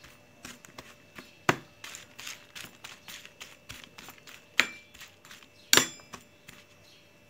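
Metal spoon mixing sliced eggplant on a baking tray: soft scraping and rustling of the pieces with light taps, and three sharp clinks of the spoon against the tray that ring briefly, about one and a half, four and a half and six seconds in.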